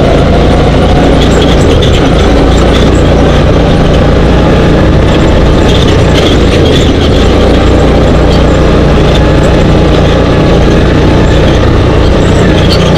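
Dune buggy engine running steadily under way over sand, loud and constant, mixed with the rush of riding noise on an on-board camera.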